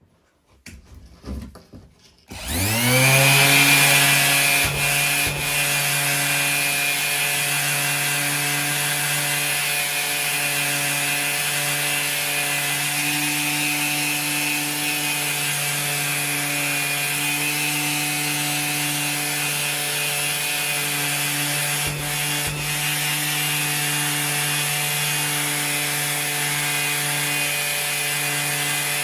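Makita orbital sander spinning up about two seconds in, after a few handling knocks, then running steadily with a hum and hiss as it sands old clear coat and salt corrosion off an alloy wheel.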